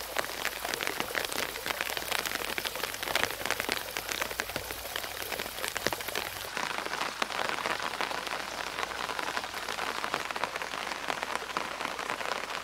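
Steady rain falling, a dense patter of many small drops. About halfway through the sound changes, with less high hiss, as drops land on the surface of a small creek.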